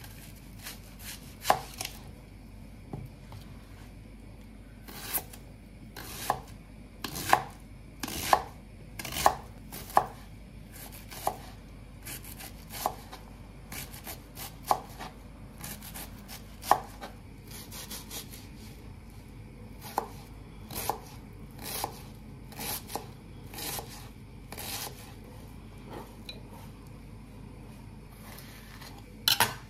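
Kitchen knife chopping vegetables on a cutting board: separate sharp knocks at an uneven pace, closest together in the first third.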